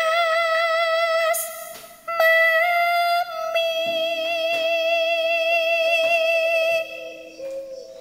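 Background music: a high melody of long held notes with vibrato.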